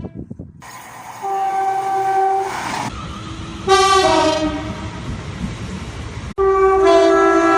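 Train air horns sounding chords of several steady notes, in three separate blasts cut together abruptly: one about a second in, one near the middle, and the loudest in the last second, over the low rumble of a moving train.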